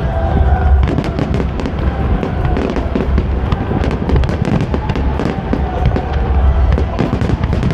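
Aerial firework shells bursting in a continuous barrage: dense, rapid crackling pops over a low, rolling boom.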